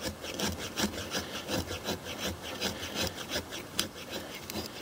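The 90-degree spine of a Condor Pack Golok (a compact machete) scraping rapidly up and down a wet wooden stick, about three to four strokes a second, rasping off fine shavings and dust for tinder.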